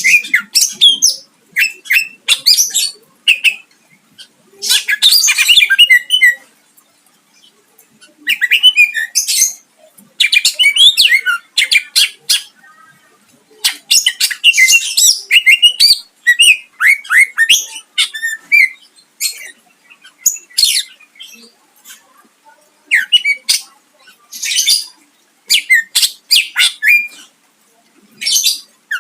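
A cucak ijo (green leafbird) singing loudly in short, varied bursts of one to two seconds. Quick chirping runs alternate with harsh, rapid phrases, mixed with the calls of other species the bird has learned to mimic.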